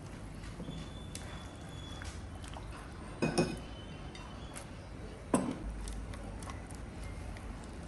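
Kitchenware clinking while a soup is cooked: two sharp knocks with a brief ring, about two seconds apart, and a few fainter clicks between, over a low steady background.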